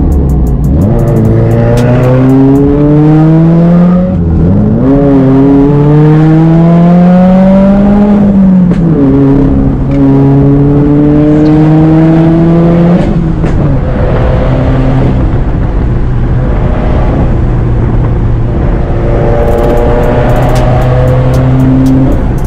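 Subaru WRX's turbocharged flat-four engine, heard from inside the cabin, pulling hard through the gears. The pitch climbs, drops at upshifts about four and eight and a half seconds in, and then holds and varies as the car is driven along the bends.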